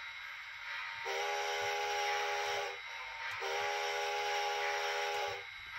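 A model locomotive's onboard sound unit sounds two long, steady whistle blasts, the first starting about a second in and the second just after the middle. A steady hiss runs underneath.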